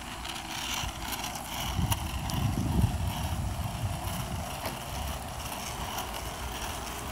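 Wheels rolling on an asphalt street, a low rumble that swells about two to three seconds in, with wind on the microphone.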